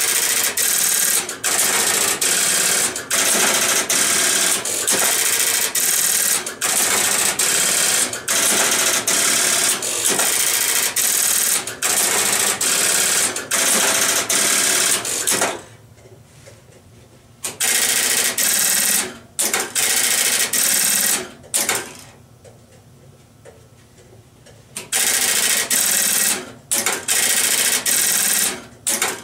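Western Electric Strowger step-by-step line finder switches stepping, a loud, fast mechanical clatter from their magnet-driven shafts and wipers. It comes in long runs that stop briefly several times, with two longer quiet pauses about halfway through and again about two-thirds in.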